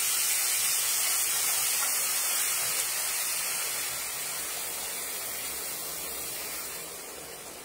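Hot water poured into a hot skillet of toasted rice, hissing as it hits the pan and boils up in steam; the hiss slowly dies down.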